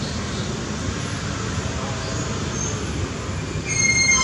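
Steady low background rumble, with a loud, high-pitched squeal starting near the end and lasting about a second.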